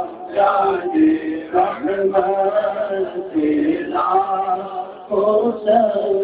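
A man's voice singing a devotional chant without instruments, in phrases of long held notes broken by short breaths.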